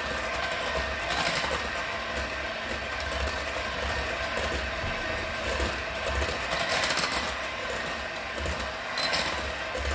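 Handheld electric mixer running steadily, its beaters whirring through cheesecake batter of cheese and sugar in a ceramic bowl, with a few brief louder moments.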